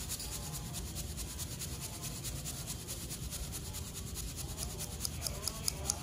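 Thick poha (flattened rice) being shaken in a small wire-mesh strainer over a steel plate, sifting out the fine broken bits: a steady dry rustle of flakes rubbing on the mesh. Near the end it turns into sharper regular ticks, about four a second.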